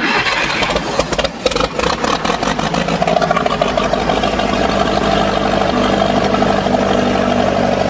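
Old Massey Ferguson backhoe's engine running just after being coaxed into its first start. It is uneven with sharp knocks for the first couple of seconds, then settles into a steady run.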